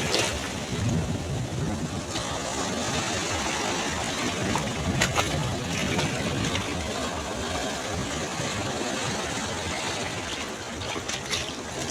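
Sea waves washing onto a beach: a steady rumbling surf hiss that eases slightly after a louder wave just before the start, with a few faint clicks in the middle and near the end.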